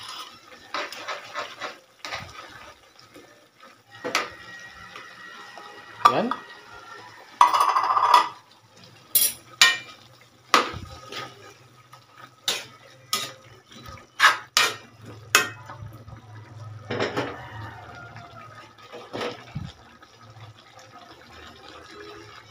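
A metal spoon scraping the inside of a tin can, then a metal spatula stirring a thick stew and knocking against an aluminium wok in sharp clinks and scrapes, thickest through the middle.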